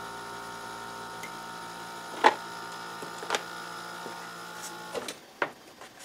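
Dehumidifier's refrigeration compressor humming steadily while the blower fan stays silent, with two sharp clicks a little past two and three seconds in. The hum cuts off about five seconds in, followed by a few light knocks.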